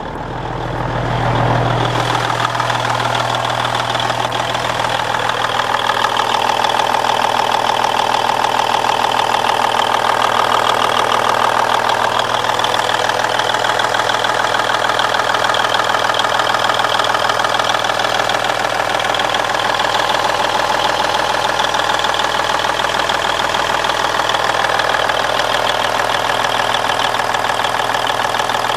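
The Cummins N14 Celect Plus diesel engine of a 1999 Peterbilt 379 idling steadily, heard close up in the open engine bay.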